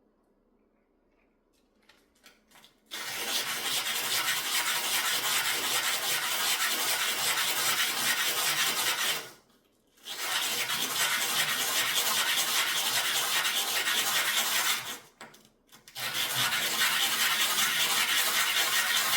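Fine sanding on a piece of jewelry: a steady, even scraping noise that starts about three seconds in after a few light clicks. It stops briefly twice and picks up again each time.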